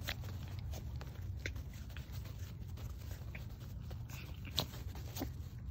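Two small Shih Tzu and Shichon puppies scuffling as they play-wrestle on artificial turf, with scattered short sharp clicks, the loudest about four and a half seconds in, over a steady low rumble.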